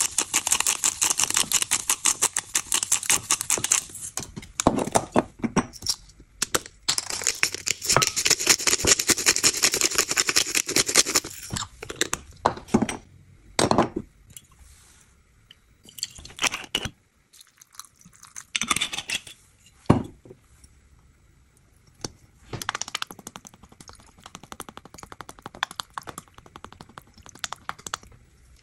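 Hand-twisted spice grinders crunching in rapid clicks: a pink salt grinder for the first few seconds, then a black pepper grinder in a second four-second spell. After that, scattered short knocks and clinks.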